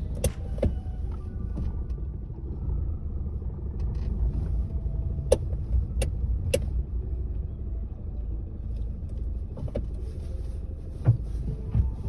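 Citroën Saxo running with a steady low rumble, broken by about eight sharp knocks at irregular intervals. The knocks come from a worn lower engine mount.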